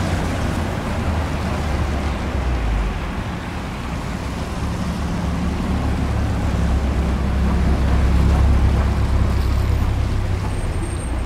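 Wind buffeting an outdoor microphone over street traffic below: a steady low rumbling noise that swells louder about eight seconds in.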